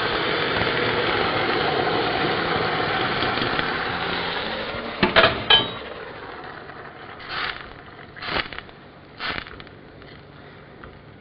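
Hot fish stock poured into a pan of frying rice, sizzling loudly as it hits the hot pan and fading away over about five seconds. A couple of sharp knocks and three short scrapes of a wooden spoon in the pan follow.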